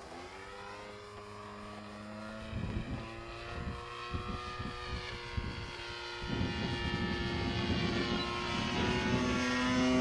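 Zero fighter plane's propeller engine droning as it flies past overhead. The pitch drops in the first second, then gradually climbs while the sound grows louder toward the end.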